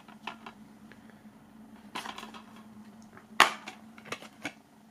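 Plastic DVD keep case being handled: soft rustling and light clicks as it is turned over, then one sharp snap about three and a half seconds in as the case is opened, followed by a few softer clicks. A faint steady low hum lies underneath.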